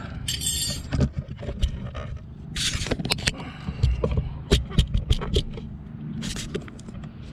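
Handling noise of a caliper cover being pulled off a Brembo brake caliper and the camera being moved: scrapes and a scattered run of clicks and light knocks, with a longer scrape near the start and another about two and a half seconds in.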